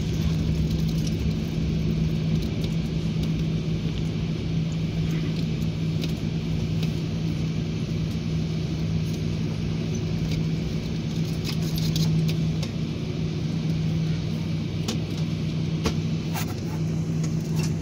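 Steady cabin noise inside an airliner taxiing after landing: an even low hum with a steady drone from the engines and air systems. A few light clicks come near the end.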